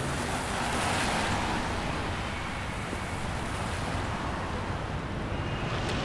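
Steady rain falling on a wet street, a continuous even hiss that swells slightly about a second in.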